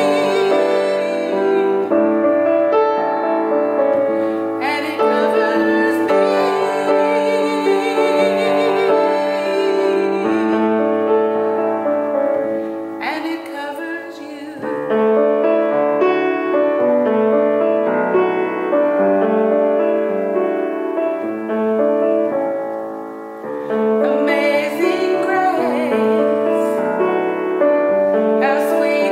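A woman singing a hymn with vibrato, accompanying herself on a grand piano.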